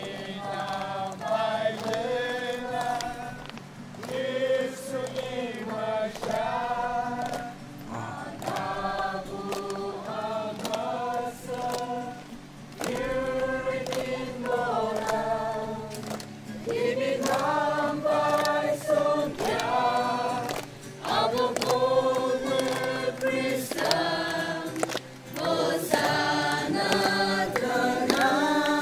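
A group of voices singing together in held phrases, with short breaks between lines every few seconds and a faint steady low tone underneath.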